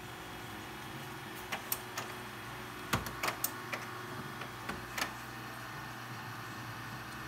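HP Color LaserJet printer running its calibration cycle after new toner cartridges have gone in. A steady motor hum runs throughout, and about a dozen sharp clicks and clacks come from its mechanism between about one and a half and five seconds in.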